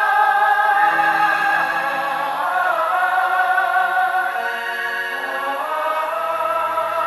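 Choral singing: voices holding sustained chords that change every second or two, with a lower part joining about two-thirds of the way through.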